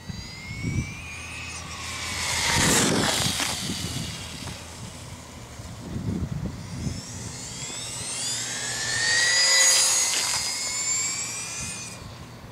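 Traxxas Mini Revo RC truck's Mamba Max 5700kv brushless motor and drivetrain whining at high speed on two passes: a high-pitched whine that climbs in pitch as it accelerates, swells as the truck comes close and fades as it runs off, loudest about three seconds in and again near ten seconds.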